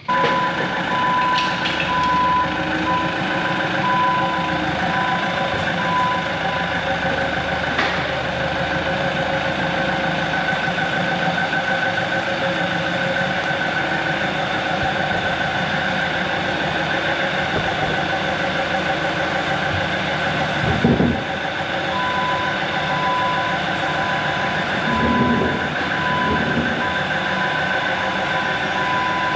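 Heavy diesel equipment running steadily while its backup alarm beeps in an even series, first for several seconds and again through the last quarter; a single knock comes near the two-thirds mark.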